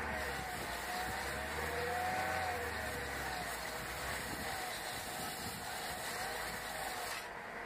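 Hyundai Verna's engine running and spinning the bare front brake disc while emery paper is pressed against it: a steady hum under an even abrasive scraping. The disc is being roughened to remove its glazed surface, which causes the brake pedal vibration.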